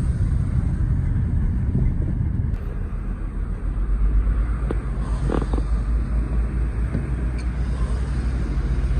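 Inside a moving car: a steady low rumble of engine and tyres on a road wet with sleet, with a few light clicks about five seconds in.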